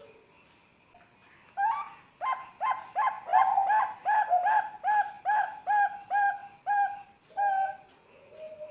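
Young zebra dove (perkutut) of Bangkok contest stock cooing: a rapid run of about a dozen short, clipped notes at roughly three a second for some five seconds. A softer, lower sliding coo follows near the end.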